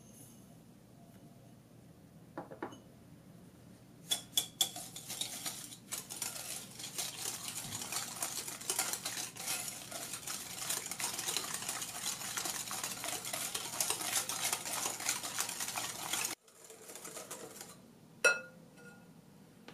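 Wire whisk beating egg yolks and sugar in a glass bowl: quick, continuous strokes of metal wires against glass and through the wet mixture, beginning with a few sharp clinks. It stops abruptly near the end, and a single sharp clink follows shortly after.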